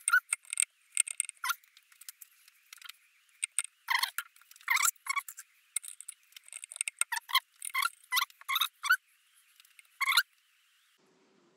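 Fingers smearing bearing grease into the hub bore of a motorcycle front wheel: a run of short, irregular, high-pitched sticky squeaks and smacks.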